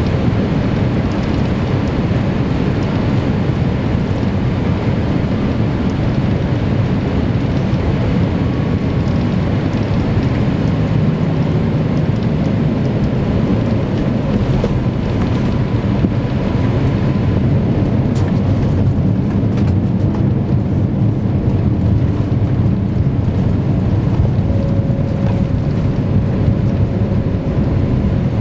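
Steady, loud rumble of engine and airflow noise inside the cabin of a Boeing 787-8 Dreamliner landing and rolling along the runway.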